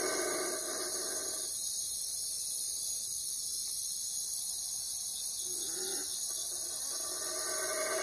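Night-time forest ambience: a steady high-pitched hiss throughout, with a long, drawn-out pitched call that fades out about a second and a half in and starts again at about five and a half seconds.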